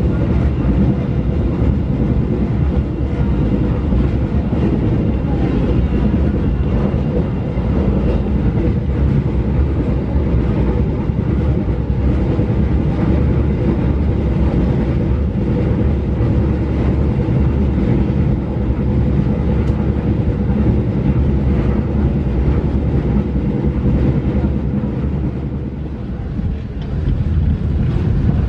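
Jayakarta Premium passenger train running at speed, heard from inside the carriage: a steady low rumble of wheels on the track with a faint steady hum, dipping briefly in loudness near the end.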